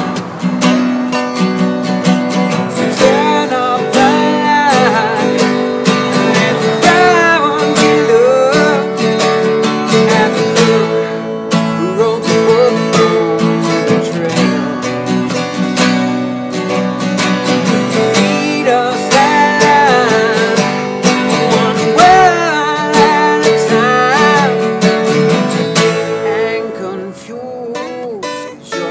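Two acoustic guitars strummed together under a male voice singing a melody. The playing gets quieter near the end.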